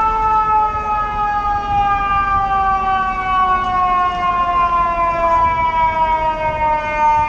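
Fire truck siren sounding one long tone whose pitch slides slowly and steadily downward, over the low rumble of street traffic.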